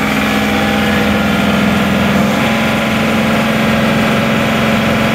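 John Deere 2038R compact tractor's diesel engine running steadily at high speed, about 2,650 rpm on the tachometer, at or just above its rated speed. It is driving the hydraulic pump during a flow test.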